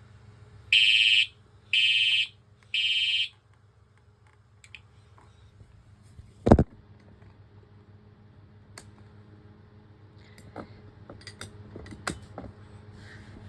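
Fire alarm sounder giving three evenly spaced half-second tone pulses, the temporal-three evacuation pattern. About six and a half seconds in there is a single loud thump, followed by a few light clicks, over a faint steady hum.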